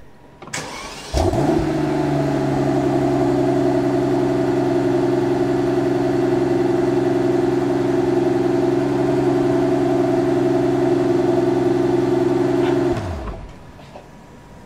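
Mercedes-Maybach S680's twin-turbo V12 engine starting about a second in, catching with a short rising flare and settling into a steady idle, then switched off at about 13 seconds, its note falling away. The idle holds an even pitch with no revving.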